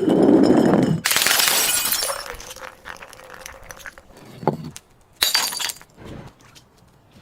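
Glass bottle breaking: a dull low thud, then a loud sudden shatter about a second in that fades away, followed by smaller cracks and another short burst of breaking glass around five seconds in.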